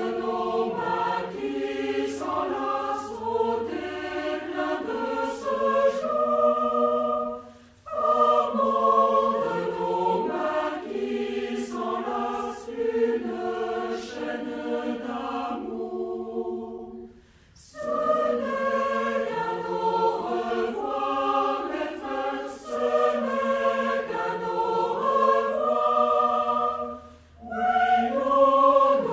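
A choir singing in long phrases, each about ten seconds, separated by brief pauses for breath.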